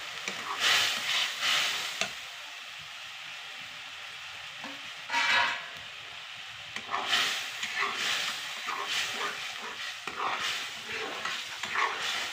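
Ground onion, ginger and garlic paste sizzling in hot oil in a metal kadai, with a metal ladle scraping and stirring it around the pan: a few strokes at the start, a couple about five seconds in, and many through the second half.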